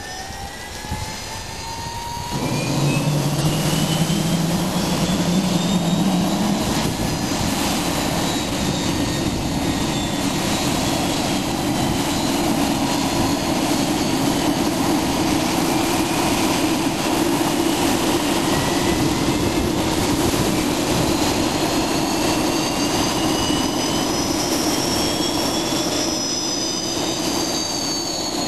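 Fairchild Hiller FH-1100 helicopter's Allison 250 turboshaft engine starting: a rising turbine whine, then about two seconds in the engine lights off and the level jumps to a steady, loud running sound. High whines keep climbing in pitch as the turbine accelerates toward idle.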